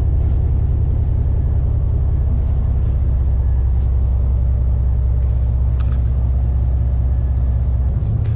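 Large diesel engine idling, a steady low rumble that does not change.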